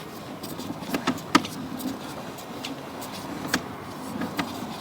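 Sewer inspection camera's push cable being pulled back through the pipe: irregular clicks and knocks, the sharpest about a second and a half in, over a steady low mechanical hum.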